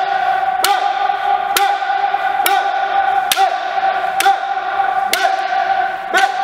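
Kendo practice: sharp cracks of bamboo shinai strikes, about seven, roughly once a second, under long drawn-out kiai shouts whose pitch dips and recovers with each strike. The sound echoes in a large hall.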